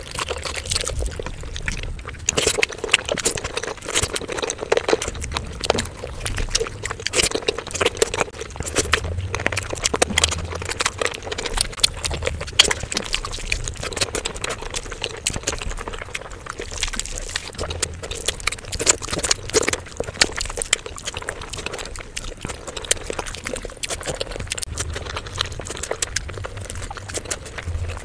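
Close-miked wet chewing and lip-smacking of saucy fried rice eaten by hand, with squelches of fingers mixing the gravy-soaked rice: a dense, continuous run of small clicks and squishes.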